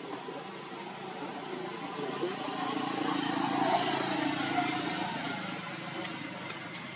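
A motor vehicle's engine passing by, swelling to its loudest about halfway through and then slowly fading.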